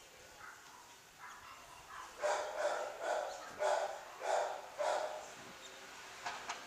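A dog barking about six times in a steady run, starting about two seconds in.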